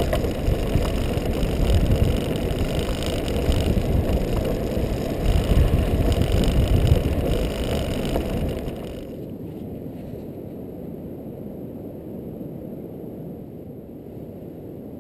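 Kite buggy running fast over hard beach sand: a dense rumble from its wide balloon tyres mixed with wind rushing past. About nine seconds in this cuts off and gives way to a much quieter, steady wind.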